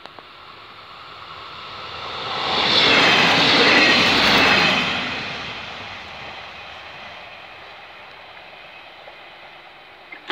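A train passing close by. The sound swells to a peak about three to four seconds in, then fades as the train moves away.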